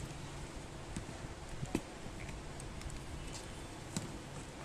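A few light clicks of test probes touching the DTH box's power-supply board, over a steady low background hum.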